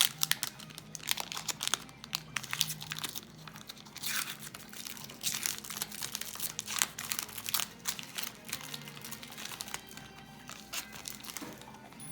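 Foil trading-card pack wrapper crinkling and crackling in the hands as a pack is opened and handled, a dense run of sharp crackles over faint background music.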